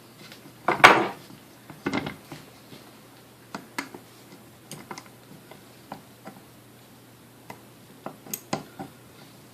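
Clicks, clinks and knocks of small metal mixer parts being handled and fitted together during reassembly of a Sunbeam Mixmaster Model 12 motor housing. The loudest knock comes about a second in, with another just after two seconds and lighter ticks after that.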